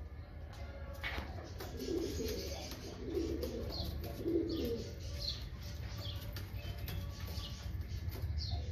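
Domestic pigeons cooing, three low rolling coos about a second apart in the first half, with a few short high chirps from other birds and a steady low hum.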